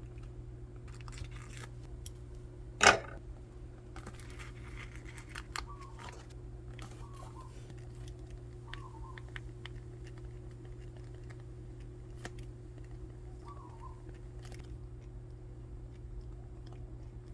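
Planner stickers being peeled from their backing sheets and paper handled, with small clicks and rustles and one loud, sharp sound about three seconds in, over a steady low hum.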